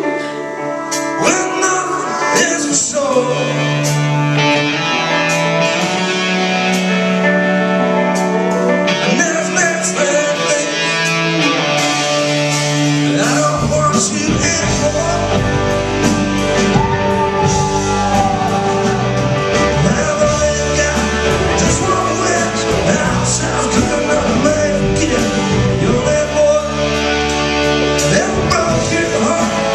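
Live rock band playing with guitars and drums; the bass comes in about halfway through and fills out the sound.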